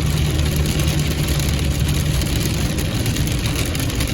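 A car driving in the rain, heard from inside the cabin: a steady low engine hum under an even hiss of rain and wet road.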